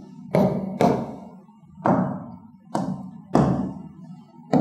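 Marker pen knocking against a whiteboard while writing and drawing, six separate knocks, each with a short ringing tail.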